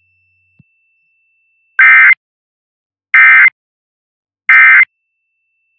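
Emergency Alert System SAME end-of-message data signal: three short, loud bursts of shrill digital warbling, evenly spaced about a second and a half apart, marking the end of the alert.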